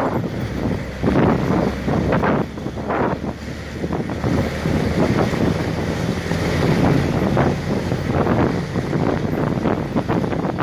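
Wind buffeting the microphone of an open military jeep driving on a gravel track, over the rumble of the jeep's engine and tyres. The buffeting comes and goes unevenly.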